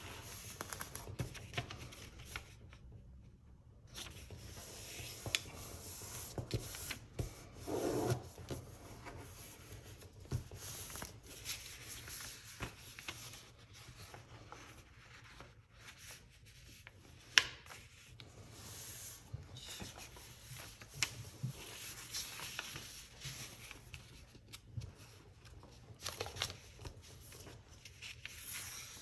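A sheet of paper being folded by hand on a tabletop: fingers slide over the paper and press creases into it, giving a continuous scratchy rubbing with many small clicks and one sharper click about two-thirds of the way through.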